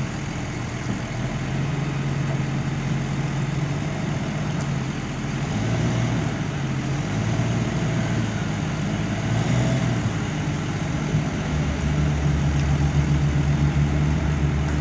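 Diesel engine of a Ferrari reach stacker running steadily while it holds a heavy load on its boom. Near the end the engine note deepens and gets a little louder.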